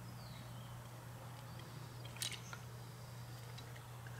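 Quiet handling of a Carter BBD carburetor's top as it is fitted onto the body, with faint ticks of metal parts and one sharp click about two seconds in, over a steady low hum.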